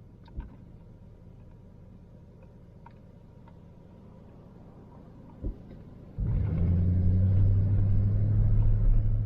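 Van engine and road noise from inside the moving van: a low steady hum with rumble that starts abruptly about six seconds in, after a quieter stretch with two soft thumps.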